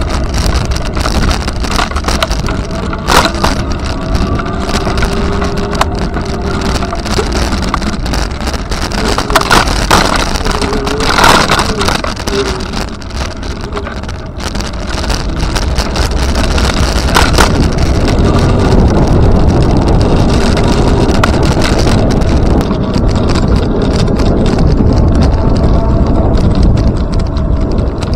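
Steady rush of wind over the microphone and rolling noise from a moving ride, with a few short sharp clicks.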